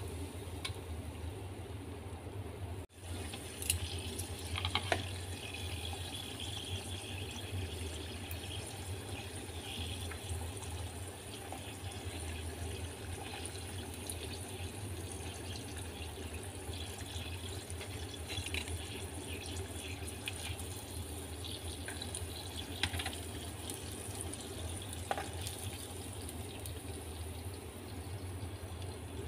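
Prawn pempek sticks deep-frying in a pot of hot oil: a steady sizzle, with a few short clicks of metal tongs as the pieces are turned and lifted out. A steady low hum runs underneath.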